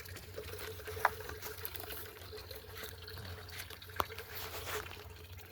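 Water trickling and splashing from a homemade concrete mailbox fountain, its water pumped up from the bottom and running back out. There is a faint steady hum under it, and two short clicks, about a second in and about four seconds in.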